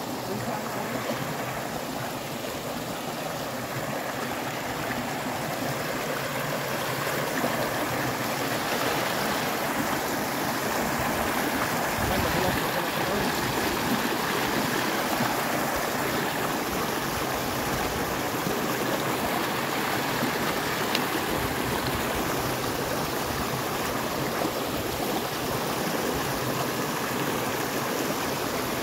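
Shallow river water flowing in a steady rush, growing a little louder over the first several seconds and then holding even.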